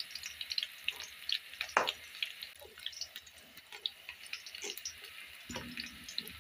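Sliced onions frying in hot oil in a metal pan: a steady sizzle with many small crackling pops. A low rustle comes in near the end.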